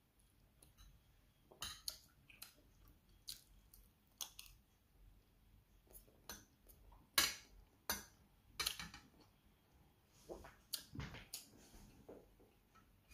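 A metal spoon and fork clinking and scraping on a plate as rice and meat are scooped up, in irregular light clicks, with chewing between bites.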